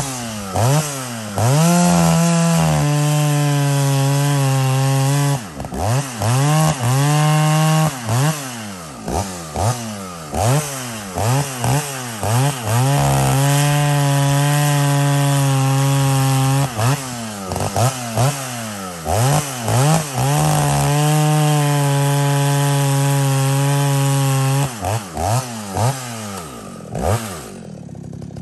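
Vintage Jonsered 920 two-stroke chainsaw revved in a string of quick throttle blips, with three holds at high speed lasting a few seconds each, then dropping back to idle near the end. The saw is being run up while its carburettor is tuned, so that it does not rev too high.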